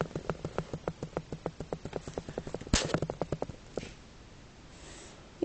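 Plastic Lego parts clicking quickly and evenly, about six or seven clicks a second, with one louder snap a little under three seconds in. The clicking stops about a second before the end.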